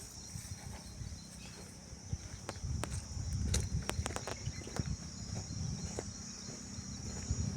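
Insects keep up a steady high-pitched drone over footsteps crunching on the ground, with a run of sharp clicks about three to five seconds in.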